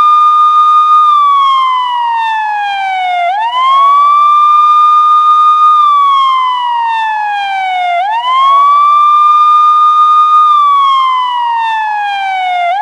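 Police siren wailing in a repeating cycle. Each cycle sweeps quickly up, holds the high pitch for about a second, then slides slowly back down over a couple of seconds, about every five seconds.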